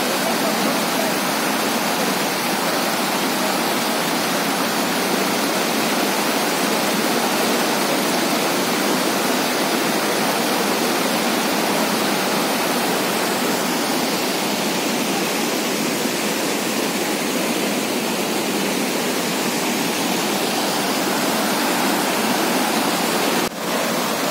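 A steady, even rushing hiss with no voices. It drops out for an instant near the end.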